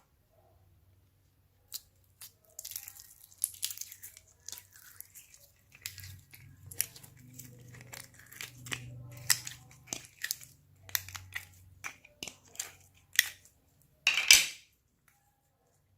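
Store-bought slime being mixed and kneaded by hand: a dense run of sticky crackles and sharp clicks, with a louder tearing burst near the end.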